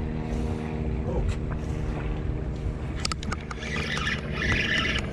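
Charter fishing boat's engine running steadily with a low rumble and an even hum. About three seconds in, a run of sharp clicks and rattles starts over it.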